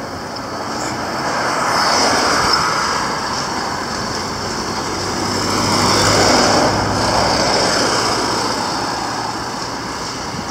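Motor vehicles passing close by, a steady engine and tyre rumble that swells twice and fades.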